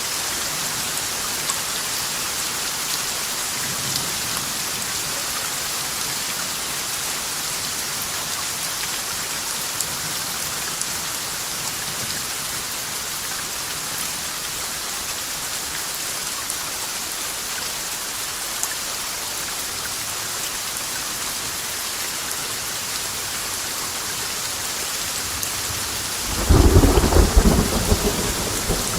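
Steady rain falling, an even hiss throughout. About three seconds before the end, a loud rolling peal of thunder breaks in and keeps rumbling.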